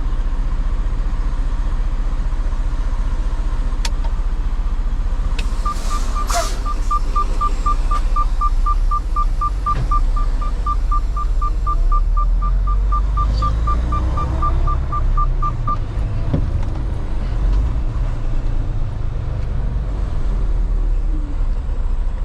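Semi truck's diesel engine idling with a steady low rumble. About six seconds in, a rapid run of short electronic beeps at one pitch starts, several a second, and goes on for about ten seconds. A few sharp clicks come just before it.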